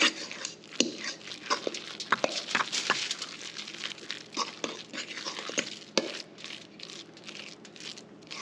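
Metal utensil stirring and mashing flaked fish and mayonnaise in a stainless steel bowl: irregular wet scraping with frequent clicks of the utensil against the bowl.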